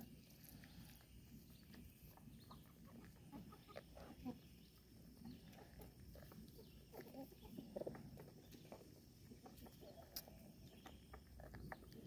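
Faint sounds of goats and chickens feeding together at a wooden trough: scattered soft nibbling, pecking and shuffling noises, with a few slightly louder animal sounds around the middle.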